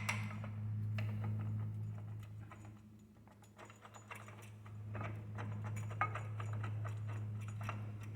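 Light metallic clicking and clinking of brake caliper bolts and star washers being handled and threaded in by hand, over a steady low hum.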